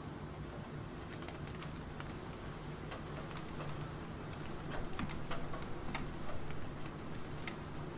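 Keyboard typing in scattered keystrokes, with a quicker, louder run of keys about five to six and a half seconds in, over steady rain.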